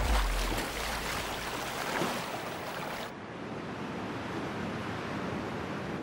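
Sea water splashing and streaming off a whale's tail flukes as it dives, opening with a deep low thud. About three seconds in this gives way to a quieter, steady hiss of wind.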